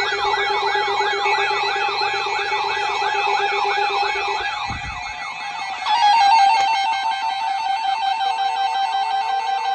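Electronic alert tone between emergency broadcasts: a warbling, siren-like tone about three wavers a second over steady tones, the warble slowing. About six seconds in it gives way to a louder cluster of steady tones with a slowly rising note.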